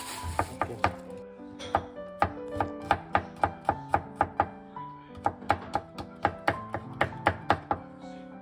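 Knife chopping on a cutting board: quick, even strokes about four a second, in two runs with a short pause near the middle. Background music plays under it.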